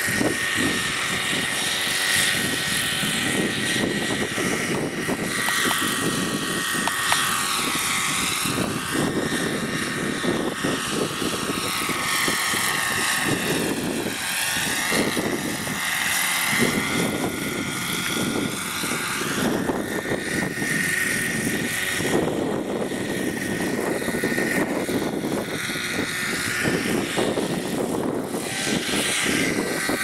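Engine-powered radio-controlled helicopter flying with its smoke system on: a high engine and rotor whine that rises and falls in pitch several times as it manoeuvres and passes. Gusty wind buffets the microphone underneath.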